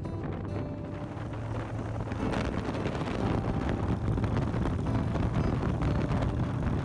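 Motorcycle engine running at road speed with wind rushing over the microphone, getting louder about two seconds in.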